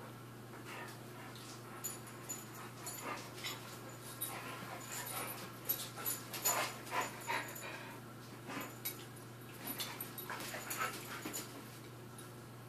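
Two huskies play-fighting: short dog vocal sounds and scuffling in scattered bursts, busiest in the middle.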